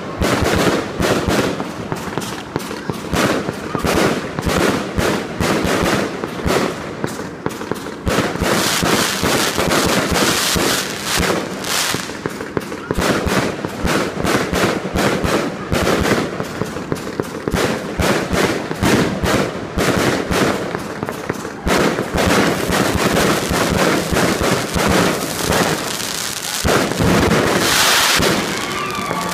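Fireworks display: a dense, unbroken run of bangs and crackling from shells bursting overhead, louder near the end.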